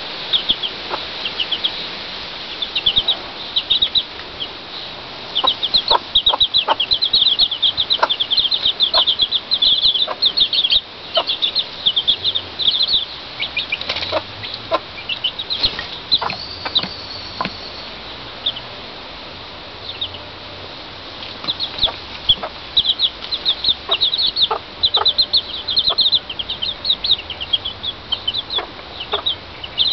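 Chicks peeping in rapid runs of short, high cheeps, pausing for a few seconds in the middle, with a Pekin bantam broody hen's occasional short, low clucks among them.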